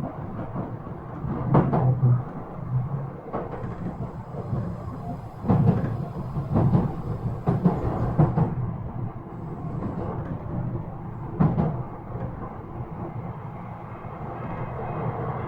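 Yokohama Minatomirai Railway Y000 series electric train running, heard from inside the car: a steady low rumble with about six sharp wheel knocks at uneven intervals as the wheels pass rail joints or points.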